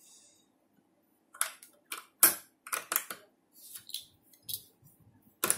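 A quick series of short scrapes and rustles from a hand moving over and pressing on a notebook page.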